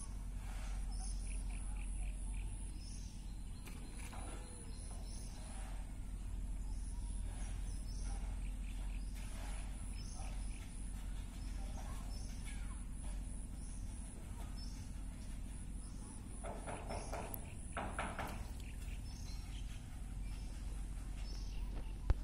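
Outdoor pond-side ambience: a bird repeats a short high chirp about once a second over a thin, steady high-pitched insect drone and a low steady rumble.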